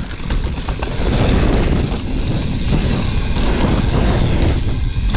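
Wind rushing over the camera microphone and the tyres of a full-suspension mountain bike rolling over a sandy dirt trail at speed, a steady loud rumble with rattle from the bike.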